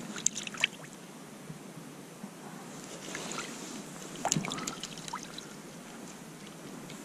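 Small splashes and clicking knocks of water and slush at an ice-fishing hole: a quick run of sharp clicks in the first second, then another cluster of splashes and clicks about four seconds in.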